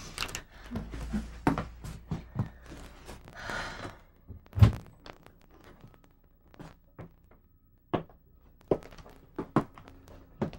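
Thuds, clicks and footsteps in a small room as a door is opened and people walk in. The loudest thud comes a little under halfway through, after a brief rustling hiss.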